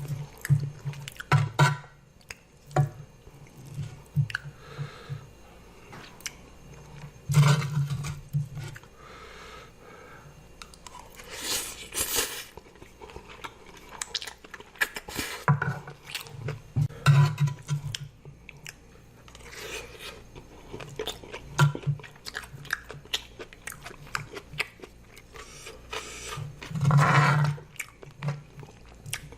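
A person eating close to the microphone: irregular wet chewing and crunching with sharp mouth clicks, and a few longer, louder bursts about twelve seconds in and near the end.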